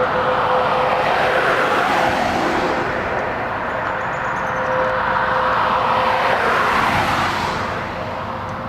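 Road traffic passing, cars swelling and fading, over a steady outdoor warning siren tone held at one pitch; the traffic noise drops away near the end.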